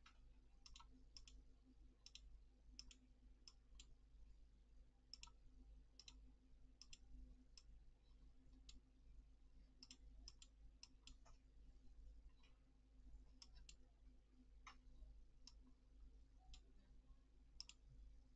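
Faint computer mouse clicks at an irregular pace, a few seconds apart or in quick pairs, over a low steady electrical hum.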